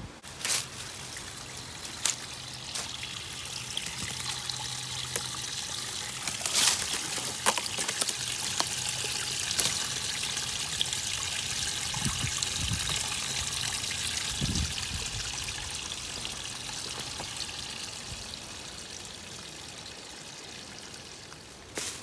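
A small woodland waterfall trickling, a thin stream of water spilling over rocks and leaves into a pool. The splashing swells and then fades, with a few sharp clicks in the first several seconds.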